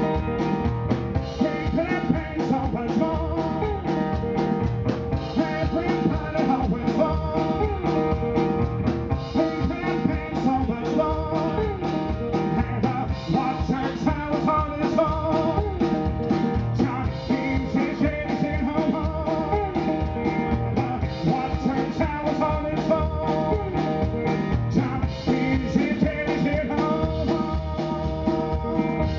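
Live roots-blues trio playing a stretch without lyrics: resonator guitar over a steady drum kit beat, with a washboard played with thimbled gloves and a mounted cymbal.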